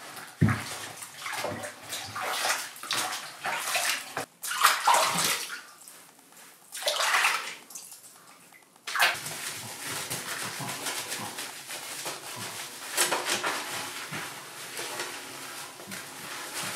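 Water splashing and sloshing in a bathtub as a cat and a small dog are washed by hand, in irregular splashes at first, then a steadier wash of water from about nine seconds in.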